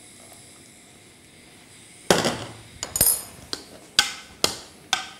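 A utensil knocking against a saucepan while potatoes are mashed with cream: about five sharp, ringing knocks, starting about two seconds in.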